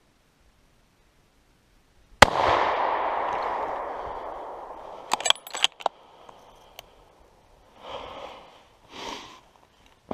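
A single hunting-rifle shot about two seconds in, its echo rolling away through the forest for a couple of seconds. A few seconds later comes a quick run of sharp metallic clicks from the rifle's action, then two short soft rustles.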